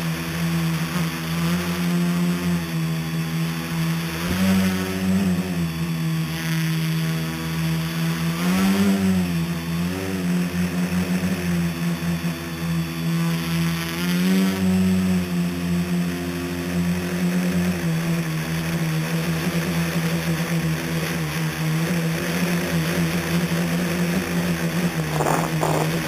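Scratch-built tricopter's electric motors and propellers buzzing steadily in flight, heard close up from the onboard camera. The pitch rises and falls briefly about four, nine and fourteen seconds in.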